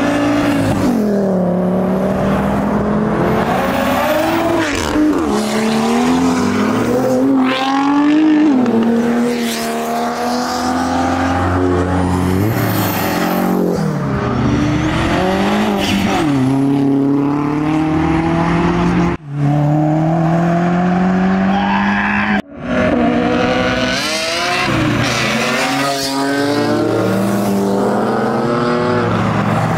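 Modified car engines revving and accelerating away, one car after another, each exhaust note climbing and falling with the revs. Two sudden brief drop-outs come past the middle.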